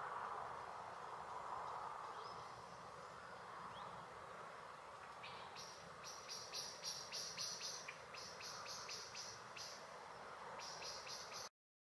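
Faint outdoor ambience with a steady background hiss. From about halfway through, a rapid series of short high-pitched chirps, about four a second, pauses briefly and returns. The sound cuts off abruptly just before the end.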